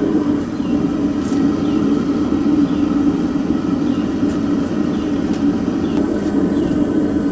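Gas burner of a small furnace running steadily with a loud, even rushing noise while it heats a crucible of aluminum fins to melting.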